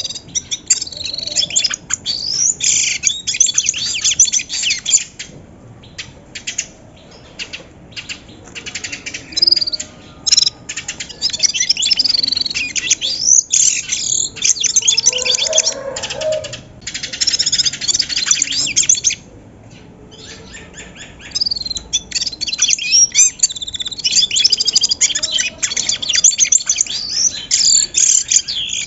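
Several bramblings chirping and calling together in dense bouts of rapid high notes and short glides, broken by brief lulls.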